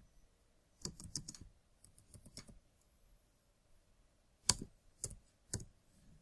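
Computer keyboard typing in short bursts: quick runs of keystrokes about a second in and again around two seconds, then three separate, sharper key presses between four and a half and six seconds.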